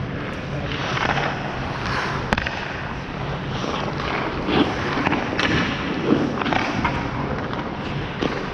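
Hockey skate blades scraping and carving on the ice in repeated short swishes, with a sharp clack about two seconds in, over a steady low hum.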